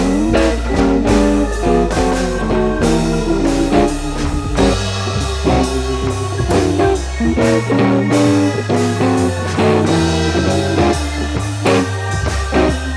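Background music: a guitar-led track with plucked notes over a bass line and a steady beat.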